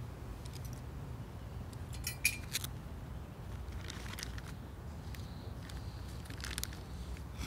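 A few sharp clicks and rustles from a shoulder bag being rummaged through and small items handled, the loudest cluster about two seconds in, over a steady low rumble.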